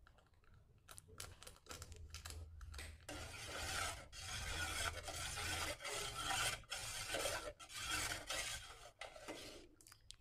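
Metal ladle stirring plum syrup in a metal pot, scraping against the pot while the liquid swishes, to mix in red food colouring. A few separate strokes at first, then steady stirring that eases off near the end.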